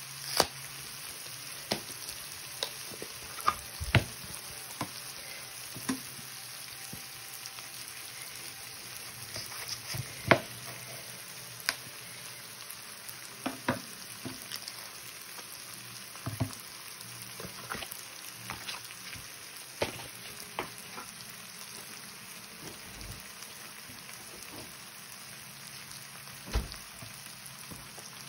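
Corn kernels sizzling steadily in a hot skillet, with scattered short clicks and knocks throughout, the loudest about 4 and 10 seconds in.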